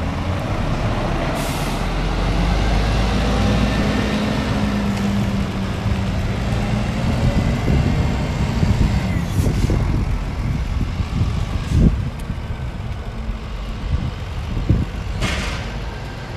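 Scania G410 tractor unit's diesel engine pulling away and driving off, its note rising through the first several seconds as it accelerates. Short hisses of air from its air system come about a second and a half in, near ten seconds, and more strongly near the end.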